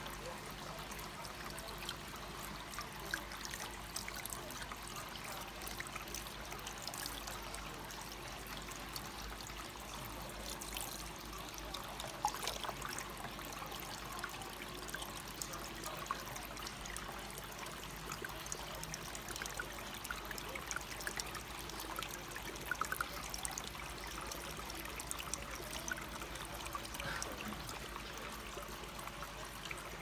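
Small tabletop water wheel fountain running: a thin stream of water pouring from its flume onto the plastic wheel and trickling into the basin, steady, with small scattered splashes.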